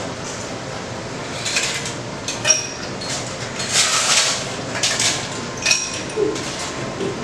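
Ice cubes dropped into a highball glass, clinking and clattering in several separate bursts with a short glassy ring.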